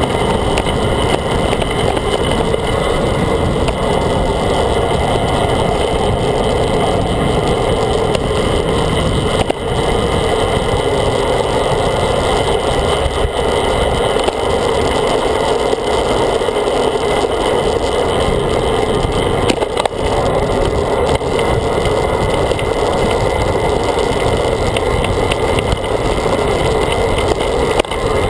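Steady rush of wind and tyre noise on a handlebar-mounted GoPro as a Ritchey Breakaway road bike descends at speed on asphalt.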